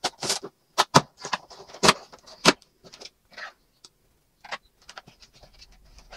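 Cardboard LEGO set box being opened: a series of sharp crackles and snaps as the flap is torn open, loudest over the first few seconds. Then softer rustling of plastic parts bags as the contents are pulled out.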